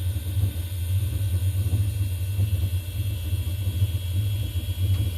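A 6040 CNC router's stepper-driven axis traversing slowly along its linear rails. It gives a steady low hum with a faint high steady whine over it.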